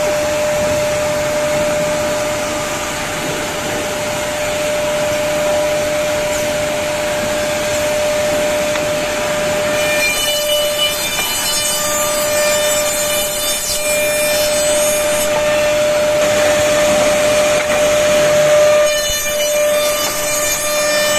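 Woodmaster WM-D200FR CNC mortise-and-tenon machine running, its spindle motors holding one steady whine over a rush of cutting and dust-extraction noise. The sound shifts about ten seconds in and again near the end.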